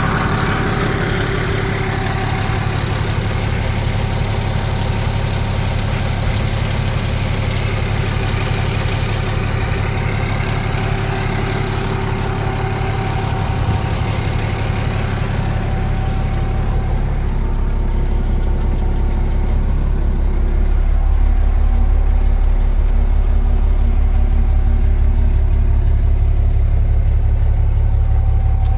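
Case International 1056XL tractor's diesel engine idling steadily, with a high thin whistle over it in the first part. After about 17 seconds it sounds deeper and a little louder, heard from the cab, and the whistle fades.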